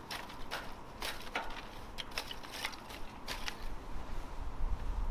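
Dry twigs and fallen leaves crackling and snapping in irregular sharp clicks as they are packed into a planter. A low rumble rises near the end.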